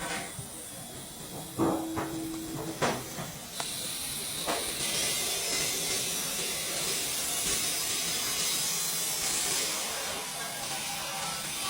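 TIG welding arc hissing steadily for several seconds, after a few sharp clicks.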